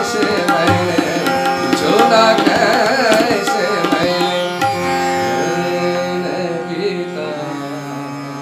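Tabla and harmonium closing out a Hindi song over a tanpura drone. The tabla strokes stop about halfway through, and the harmonium notes are held and fade away.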